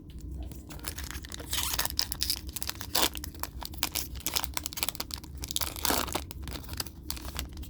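Foil trading-card booster pack being torn open and its wrapper crinkled: a dense run of crackles and rips, heaviest about two seconds in and again near six seconds.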